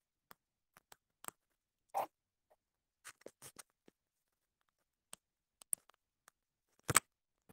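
Scattered clicks and taps picked up on an open microphone during a sound check, with a duller knock about two seconds in and a sharp, louder click near the end.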